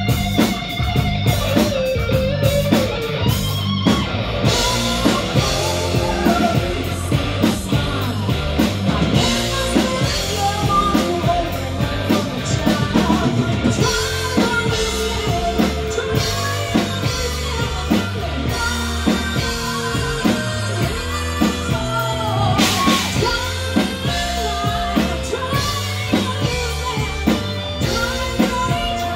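Rock band playing: electric guitar, bass and drum kit at a steady driving beat, with a singing voice over them.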